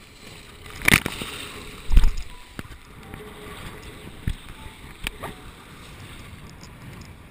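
Water sloshing and rushing along a sailing yacht's hull as she beats to windward. Two sharp, loud thumps come about one and two seconds in, and a few smaller knocks follow later.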